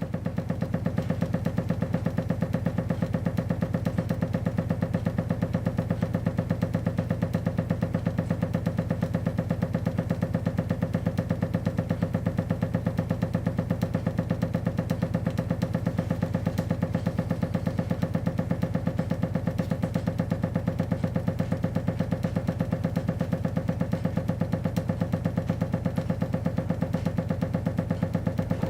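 Household water pipework knocking in a rapid, even rhythm: water hammer. It is set off when the boiler starts up and an already dripping tap begins dripping faster, so the hammering keeps cycling.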